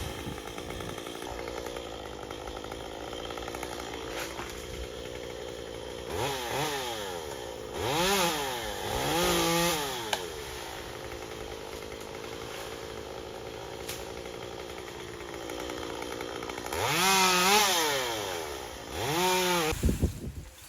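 Chainsaw engine idling steadily and revved up five times, each rev rising and falling in pitch: two close together about six seconds in, another a few seconds later, and two more near the end.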